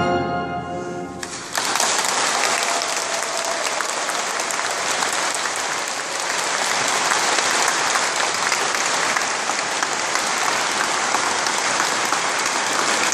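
The orchestra's final chord dies away, and about a second and a half in the audience suddenly breaks into steady applause.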